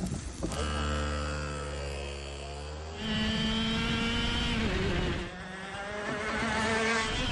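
Two-stroke go-kart engine, first running steadily at idle, then out on track with its pitch rising as it accelerates, falling off about five seconds in and climbing again near the end.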